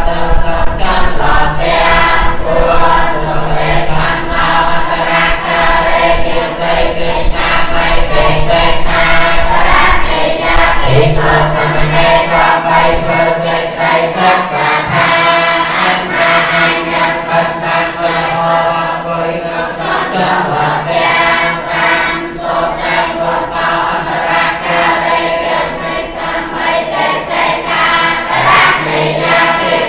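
A group of Buddhist monks chanting Pali in unison, many voices on long, drawn-out notes that shift in pitch now and then.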